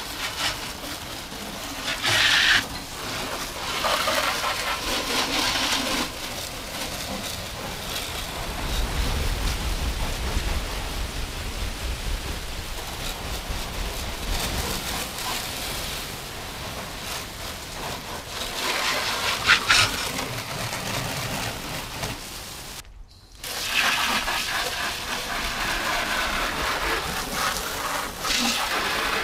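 Water jetting from a garden hose spray nozzle, hissing and spattering against a car's bodywork and the wet concrete driveway. It stops briefly about 23 seconds in, then starts again.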